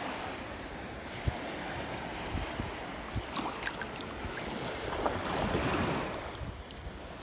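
Sea waves washing in, with wind rumbling on the microphone. A wave swells louder about five seconds in, then falls away.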